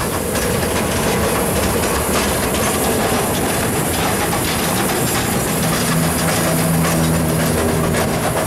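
Heritage-style electric streetcar running on its rails: a steady rumble and hiss of wheels on track, with a low hum joining about halfway through.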